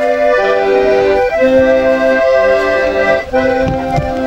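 Accordion playing a tune: held chords over bass notes that change about once a second.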